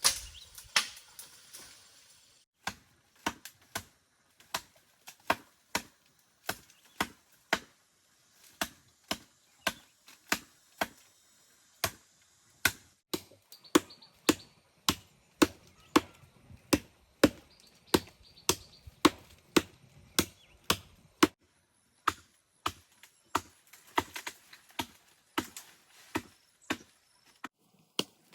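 A hand tool chopping with steady, regular blows, about one and a half a second, pausing briefly near the end, as when clearing growth from a pond bank.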